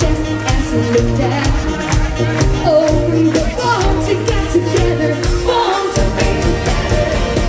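Brass band playing live pop-rock with singing over a steady beat.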